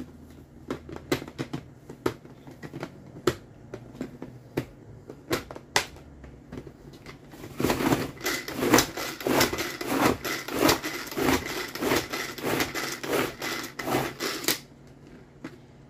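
Tupperware Power Chef pull-cord chopper being worked to mix butter and oats: each pull of the cord spins the blades in the plastic bowl with a zipping rattle. Scattered pulls and clicks at first, then a fast, steady run of pulls from about eight seconds in until shortly before the end.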